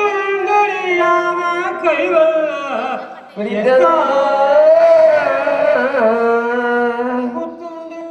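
A voice singing a slow Carnatic-style melody with long held, wavering notes, in two phrases with a short break about three seconds in.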